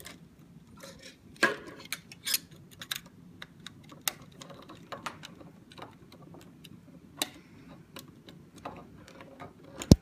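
Irregular small clicks and scrapes of a screwdriver working the terminal screws of a plastic smart wall switch while wires are pushed into its terminals, with one sharp, loud click just before the end.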